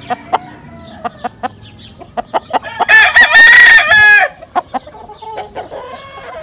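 A gamecock rooster crows once, a loud call of about a second and a half starting about three seconds in. Softer clucking calls come before and after it, with short sharp clicks scattered throughout.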